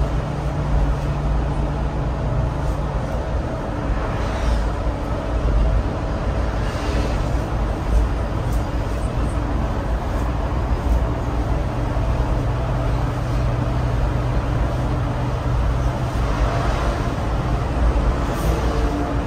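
Scania multi-axle sleeper bus on the move: a steady drone of engine and road noise, with the engine note settling lower about two-thirds of the way through.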